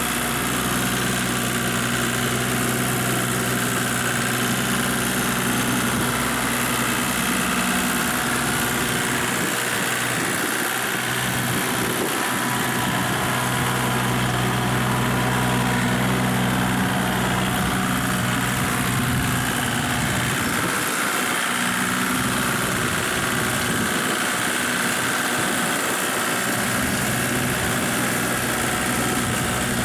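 Kubota compact tractor's diesel engine running steadily under load as it drags a leveling harrow through a flooded rice paddy, its pitch wavering slightly.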